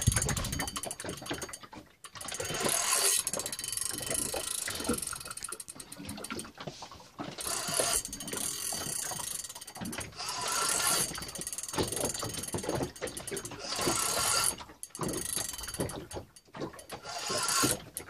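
Shimano Biomaster 10000SW spinning reel cranked in irregular bursts, its gears whirring and clicking as braided line is wound in against a heavy fish on the line.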